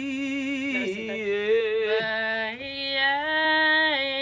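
A singer holding long, steady vowel notes in a vocal exercise. The pitch steps down about a second in and back up a second and a half later.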